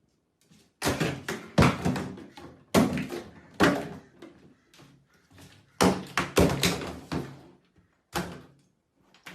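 A series of about ten sharp thuds and knocks at irregular intervals, each dying away quickly.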